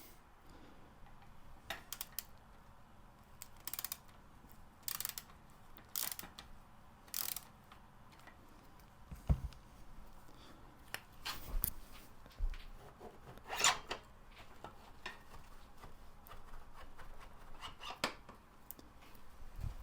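Irregular short rubs, scrapes and light knocks as a removed motorcycle fork leg is handled and checked for straightness; the loudest scrape comes a little after two-thirds of the way through.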